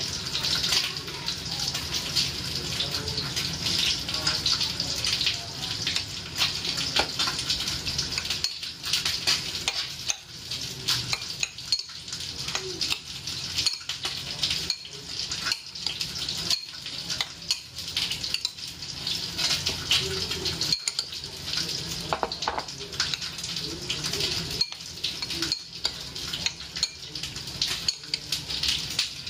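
Metal spoon stirring raw chicken pieces in marinade in a ceramic bowl: repeated clinks and scrapes of the spoon against the bowl at uneven intervals, over a steady hiss.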